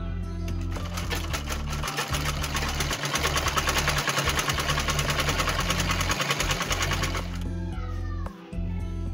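Treadle sewing machine stitching at a rapid, even rhythm, starting about a second in and stopping near the end, over background music.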